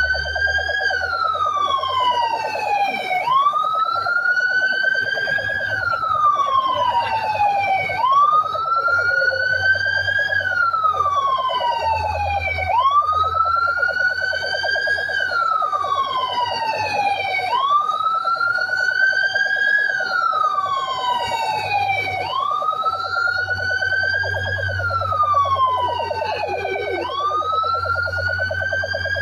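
Fire truck sirens wailing: the main tone rises and falls about every five seconds, higher-pitched siren sweeps overlap it, and a steady tone runs underneath. A low engine rumble comes and goes beneath the sirens.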